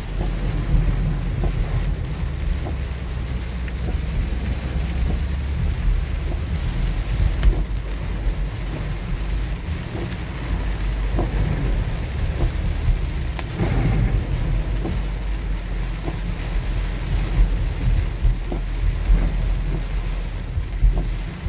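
Heavy rain pelting a moving minivan, heard from inside the cabin: a steady wash of rain with scattered drop hits on the windshield, over a constant low rumble from the road and wet tyres.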